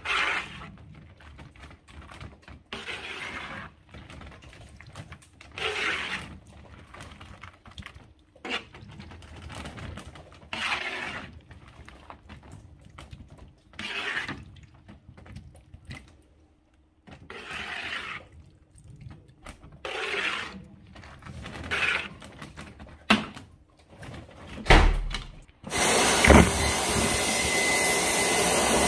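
Wet, squishy swishes of a scoop stirring through a tub of water beads, repeated every two to three seconds. About 26 seconds in a vacuum cleaner starts up, a loud steady rush with a thin whine, sucking up water beads.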